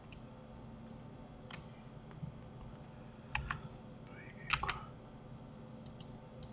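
Scattered clicks of a computer keyboard and mouse as shortcut keys and buttons are pressed one at a time, with the loudest few close together about four and a half seconds in, over a faint steady hum.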